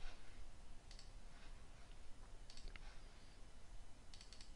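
Faint computer mouse clicks, a few spread over several seconds, with a quick cluster of clicks near the end, over low room hiss.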